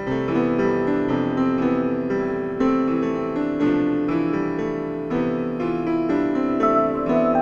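Background piano music: a melody of struck notes over sustained chords at an even pace.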